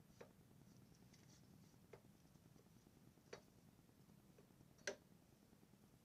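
Near silence with four faint, short metallic clicks a second or more apart, the loudest near the end: a motorcycle's front brake caliper being handled and worked off the brake disc.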